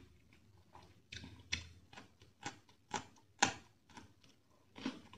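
Close-up crunching of a raw green chilli being bitten and chewed: a series of sharp, crisp snaps roughly every half second, starting about a second in, the loudest near the middle.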